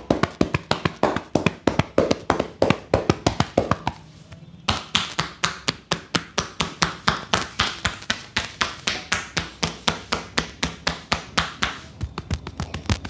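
Percussive hand massage: a barber's hands rapidly and rhythmically striking a client's body, about five sharp slaps a second. There is a short break about four seconds in, after which the strikes come a little faster.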